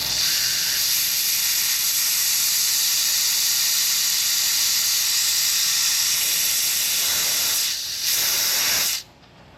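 Compressed air hissing out of an air jack's dump valve as the jack is let down. A loud, steady hiss that dips briefly near the end, then cuts off suddenly.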